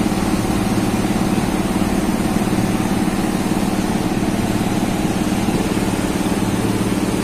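Steady, loud hum of running machinery, a constant low drone that does not change.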